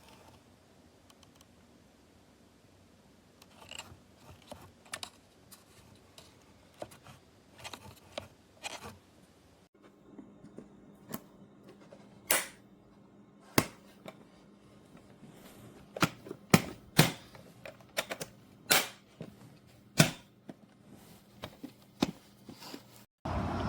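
Scattered sharp clicks and knocks of hard plastic as a handheld cordless vacuum is handled and its parts are worked. The clicks are sparse at first and become louder and more frequent in the second half.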